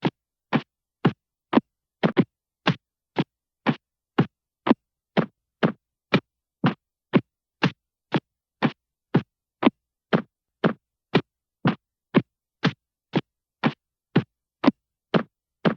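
Cartoon sound effect: a steady series of short, sharp knocks, about two a second, evenly paced with silence between them.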